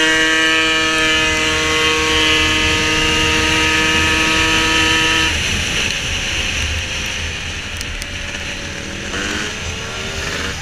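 Tuned Piaggio racing scooter engine held at steady high revs at full throttle. About halfway through, the note cuts out as the throttle is shut, leaving loud wind and rolling noise. Near the end the engine picks up again with rising revs.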